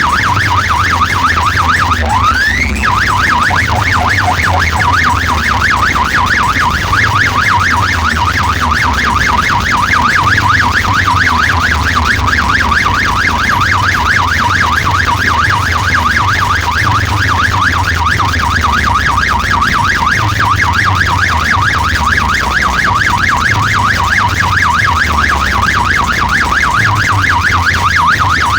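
A fast warbling siren effect blasted through a DJ sound-system rig over a heavy pulsing bass, with a rising whistle-like glide about two seconds in.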